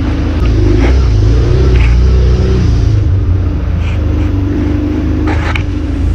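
Off-road jeep engine running and revving, louder for a couple of seconds early on, then easing back. A few sharp knocks are heard over it.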